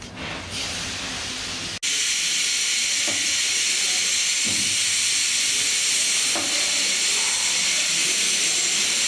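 Steam hissing loudly and steadily from beside the driving wheels of a standing steam locomotive, setting in suddenly about two seconds in; before that only a quieter, lower rumble.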